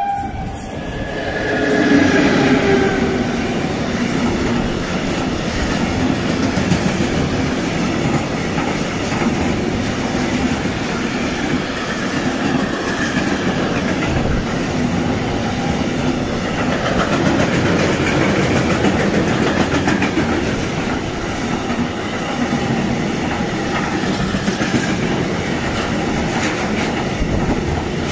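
Electric locomotive hauling a long freight train of container and tank wagons passes close by. A brief pitched whine as the locomotive goes past in the first few seconds gives way to a steady rumble of wagon wheels on the rails, with repeated clicks as the wagons roll by.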